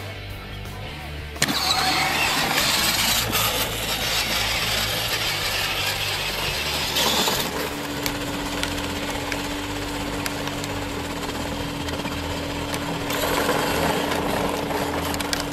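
Kids' battery-powered ride-on quad running on pavement: its electric motor whines steadily and its plastic tyres rumble and hiss on the asphalt. The noise comes up suddenly about a second and a half in, after a quieter start.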